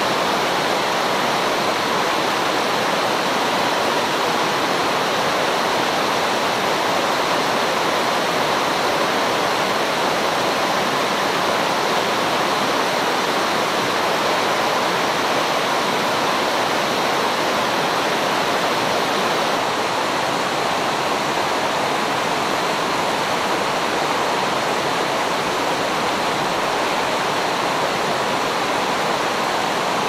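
Mountain stream rushing over and between boulders in shallow rapids: a steady, even rush of water.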